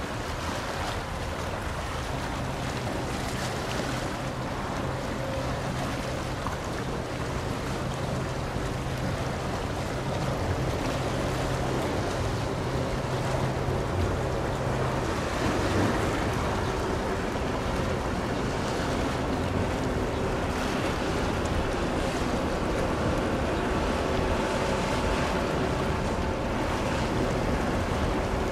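Steady wash of water and wind on the microphone, with a faint steady hum of machinery from the passing bulk carrier; the low part of the hum stops about halfway through.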